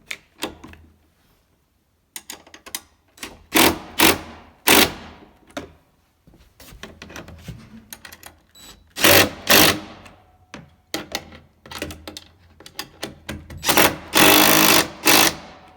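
Cordless impact driver hammering fasteners tight in several short bursts, the longest near the end, with small clicks of handling in between.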